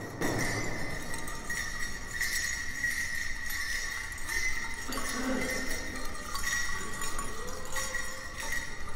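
Dance bells on a men's traditional dancer's regalia jingling lightly and unevenly as he moves.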